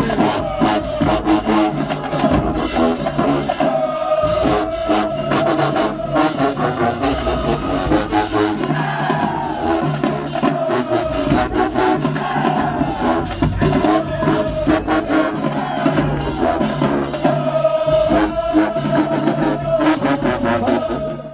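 High school marching band playing, with brass carrying the tune over steady drum strikes. The music cuts off abruptly at the end.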